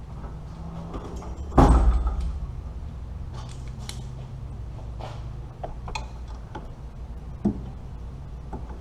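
Hand tools and parts being handled while taking apart the front of an engine: one loud knock with a short ringing tail about one and a half seconds in, then scattered light clicks and knocks over a steady low hum.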